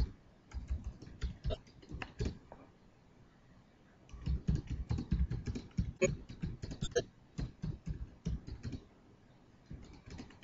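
Typing on a computer keyboard: a quick run of key clicks, a pause of over a second, then several seconds of faster, denser typing.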